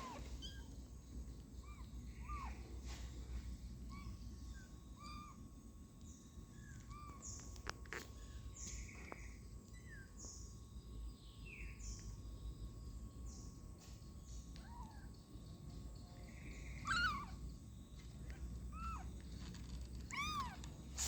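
Newborn kittens mewing: a series of short, thin mews repeating, growing louder about two thirds of the way through and again near the end.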